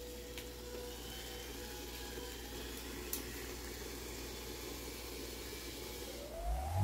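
A steady low rumble and hiss with a few faint clicks. Near the end, electronic music comes in with a loud rising synth sweep.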